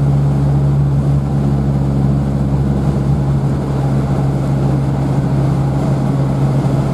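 Opel Olympia Rekord's small four-cylinder engine and drivetrain droning steadily inside the cabin while cruising at speed, with a constant low hum and little change in pitch.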